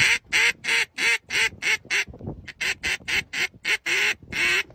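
A duck call quacking in a rapid series, about four quacks a second with a short break about two seconds in, blown by a black Labrador holding the call in its mouth.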